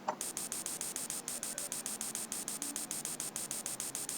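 Rapid, even clicking, about nine sharp clicks a second, from the computer as the tool of the simulated CNC lathe is jogged in toward the workpiece.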